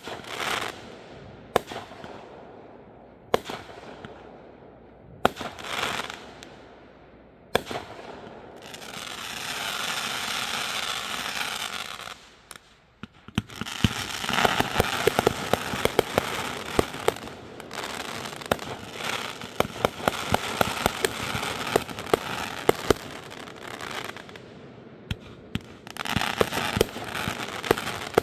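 Fireworks going off. First come single sharp bangs about every second and a half. Then a steady hiss lasts a few seconds, followed by a long run of dense crackling pops, with hissing returning near the end.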